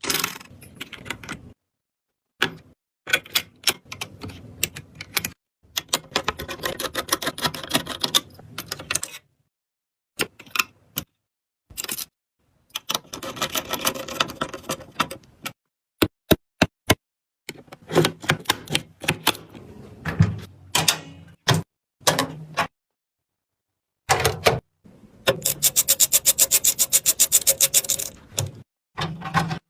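Rapid clicking and tapping, like typing, in short bursts separated by abrupt dead silences, with a fast, even run of clicks about 25 seconds in.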